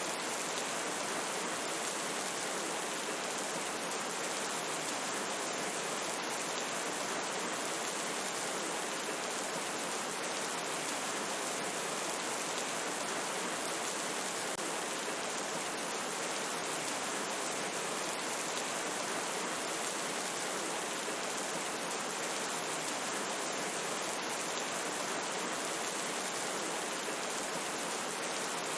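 Steady rainfall: an even, unbroken hiss of rain falling, with fine patter in the high range and no thunder.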